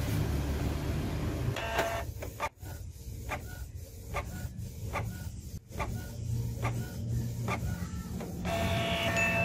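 Canon G1000 ink-tank inkjet printer running a nozzle-check test print. Its motors hum steadily and the print mechanism clicks about twice a second. A short motor whine comes about two seconds in and again near the end, as the printed sheet feeds out.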